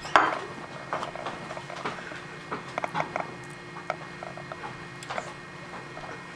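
Eating and handling noises as someone eats a piece of pancake with his fingers over a plate: a sharp click just after the start, then scattered light clicks, smacks and rustles, over a steady faint hum.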